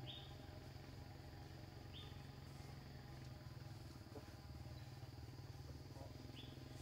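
Faint outdoor ambience: a steady high insect drone, with a few short chirps, over a low hum.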